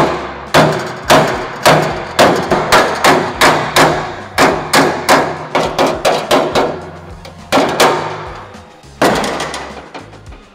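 Hammer blows on the bent sheet-steel flange of a 1940 Willys hood, straightening it: a quick run of sharp metallic strikes, about two to three a second, with a short pause about three quarters through before a few more.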